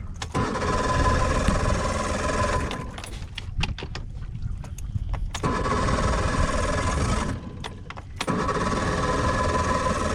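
A boat's motor running in spells: it starts right away, cuts out at about two and a half seconds with a few clicks in the pause, comes back about five seconds in, and drops briefly again before running on near the end.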